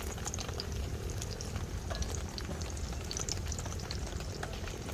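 Food sizzling in a hot pan, a steady hiss with many small crackling pops.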